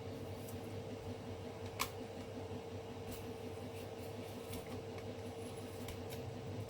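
Scattered small clicks and cracks of a 3D-printed plastic brim being peeled and snapped off the printed pieces by hand, one sharper crack about two seconds in, over a steady machine hum.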